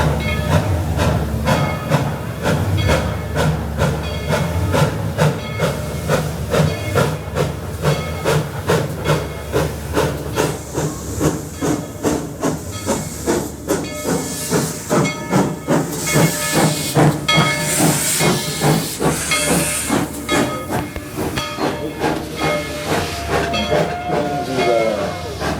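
Steam locomotive working, with a steady rhythmic beat of exhaust and continuous steam hissing that grows stronger in the middle.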